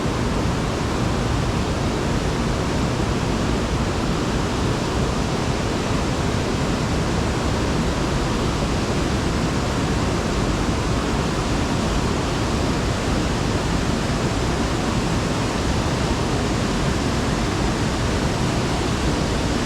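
Steady, even rush of flowing water with no breaks.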